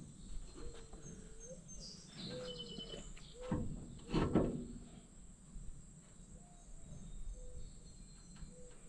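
Outdoor rural ambience: a steady high insect trill with short bird chirps, and a single knock about four seconds in.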